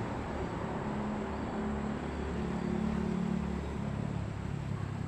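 A low engine hum with a steady pitch that shifts slightly, over outdoor hiss, a little louder for a second or so midway.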